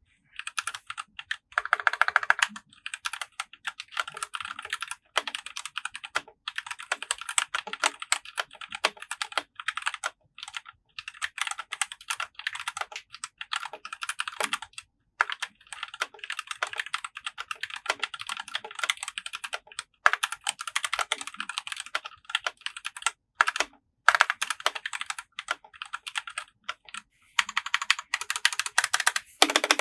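Fast typing on a Surmen GT61 60% mechanical keyboard with Gateron Yellow linear switches and PBT keycaps: rapid key clacks in long runs, broken by brief pauses. The stabilizers sound lubed, with no spring pinging.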